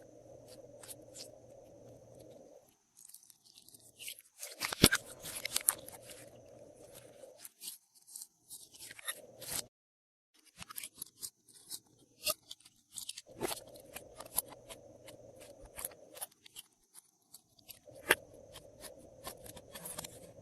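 Glossy slime being kneaded and pressed by hand, giving dense, irregular little clicks, pops and crackles, with louder clusters of pops now and then. The sound stops briefly about ten seconds in.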